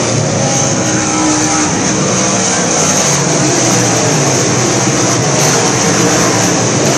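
A pack of sport mod dirt-track race cars running laps together, their engines blending into one steady, loud sound.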